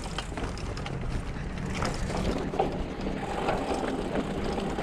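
Mountain bike rolling along a dirt trail, with the rear hub's freewheel ticking and a steady rolling rattle.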